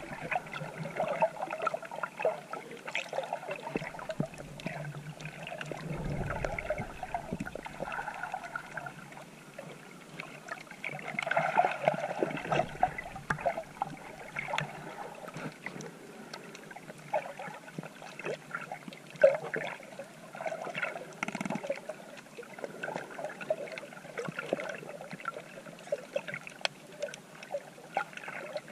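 Water sloshing and gurgling around a swimmer's GoPro, with scattered small ticks and crackles and a louder surge about a third of the way in.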